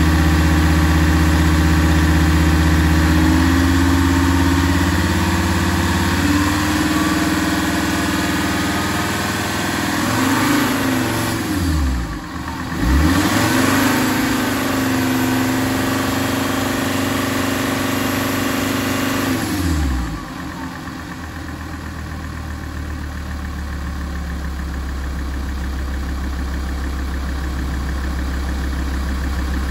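Alfa Romeo 166 2.4 JTDm five-cylinder common-rail diesel running while warming up. Its pitch shifts between about ten and twenty seconds in, then it drops back and settles to a steady idle.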